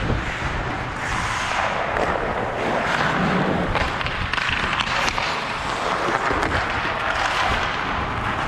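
Pickup hockey play: a steady scraping of skates and sticks, with scattered sharp clacks of sticks and puck.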